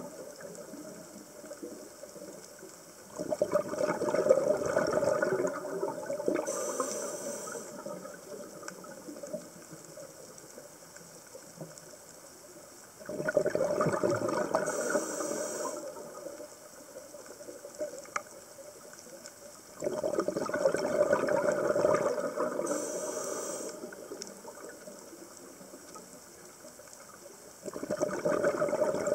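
Scuba diver breathing through a regulator underwater: a rush of exhaled bubbles every seven to ten seconds, each lasting a few seconds and fading, with a short high hiss of inhaled air between them.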